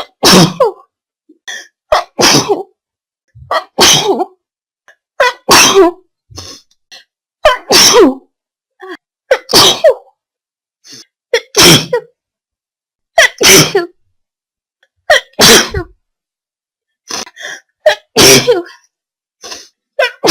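A long run of loud human sneezes, about ten of them, roughly one every two seconds, with quieter short sounds between them.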